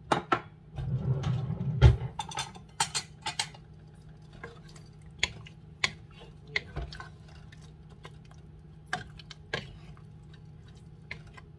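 A cooking utensil clinking and knocking against a pot of curry as bell pepper is added and stirred in, with irregular sharp clicks. They come thickest and loudest in the first couple of seconds, then are spaced out.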